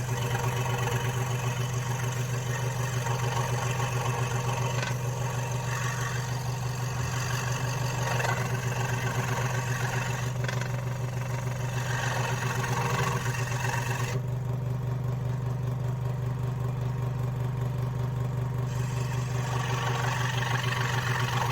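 Scroll saw running steadily, its blade stroking rapidly up and down while cutting a letter out of wood. The higher cutting noise drops away for several seconds about two-thirds through, leaving mostly the saw's low motor hum, then comes back.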